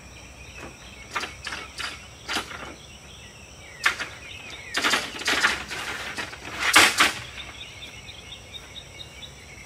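Clicks and clatter of an RV roll-out awning's metal support arm being unlatched and adjusted for retracting: a few sharp knocks, then two longer rattling scrapes about five and seven seconds in.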